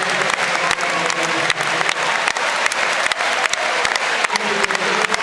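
Crowd applauding, many hands clapping irregularly, with voices calling out over it.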